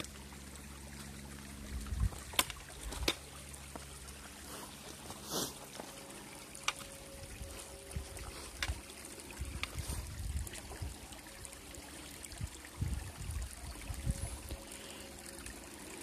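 Shallow creek water trickling over pebbles and stones. A few sharp clicks and some low thumps sound above it. A low steady hum stops about two seconds in.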